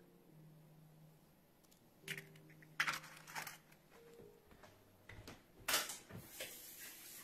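Eggshells being cracked and pulled apart by hand over a small glass bowl: a few sharp clicks and taps, the loudest near six seconds. Then a faucet runs at the sink with a steady hiss.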